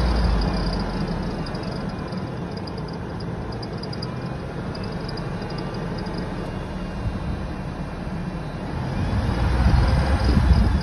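2000 Ford F-150's 4.2 L V6 running, with a high-pitched, rapidly pulsing squeal from the engine's accessory drive. The squeal fades about six seconds in and comes back near the end as the engine gets louder. It persists despite a new belt, a rebuilt alternator and power steering pump, and a different AC clutch.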